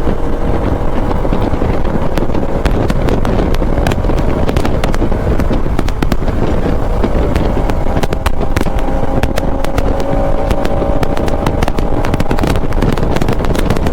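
Motorcycle engine running at riding speed under heavy wind rush on the microphone, its engine note shifting a little through a series of turns.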